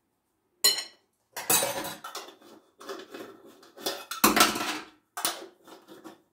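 Metal teaspoon clinking against a small glass salt jar and a glass mixing bowl as salt is measured out: a ringing clink just under a second in, then a series of clatters, the loudest a heavier knock about four seconds in.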